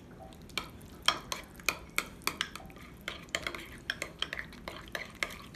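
Metal utensil stirring thick homemade tartar sauce in a small glass bowl, clicking and scraping against the glass two or three times a second.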